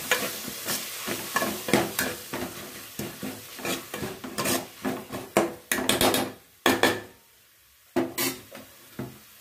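Steel ladle stirring and scraping a thick sautéed tomato-and-onion mixture in an aluminium pot, a quick run of scrapes and clinks against the metal. The stirring stops about seven seconds in, with a couple of final knocks a second later.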